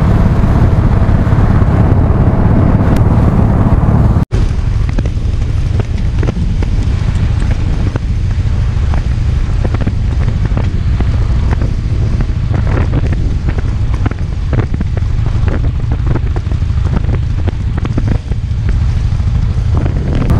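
Fuel-injected Harley-Davidson Heritage V-twin running at road speed, with heavy wind buffeting on the microphone. The sound cuts out for an instant about four seconds in and resumes a little quieter.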